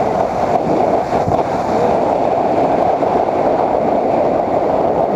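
Motorcycle riding along at steady speed: a steady rush of wind on the microphone, with the engine running underneath.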